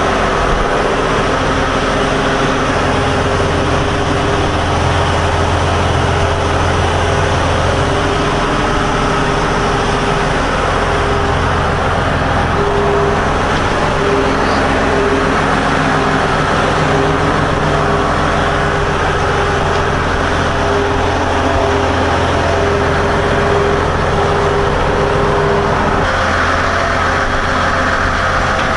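Caterpillar 988H wheel loader's diesel engine running steadily close by during a cycle test, with a few small shifts in its tone about eight seconds in and again near the end.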